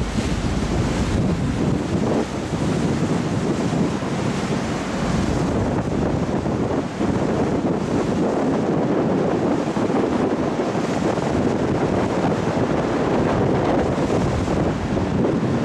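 Steady rush of wind buffeting the microphone on the open deck of a moving car ferry, with the wash of the sea alongside.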